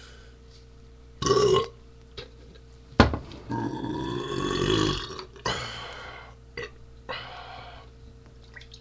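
A man belching loudly several times: a short burp about a second in, a sharp knock about three seconds in, then one long drawn-out belch of nearly two seconds, followed by two shorter burps.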